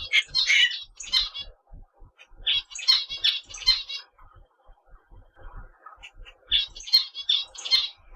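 Cockatiel calling in three bursts of quick, high chirpy notes a couple of seconds apart.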